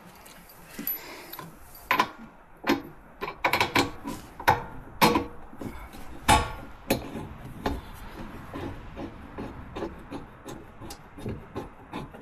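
Hand tools and a suspension bolt clinking and knocking against metal during a rear shock absorber swap: a string of sharp knocks through the first eight seconds or so, then lighter, fairly regular ticks.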